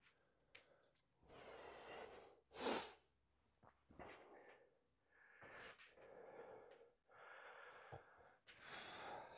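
Faint, heavy breathing from a man straining to hold up a large mirror against the wall: a series of long breaths, with one louder sharp puff about three seconds in.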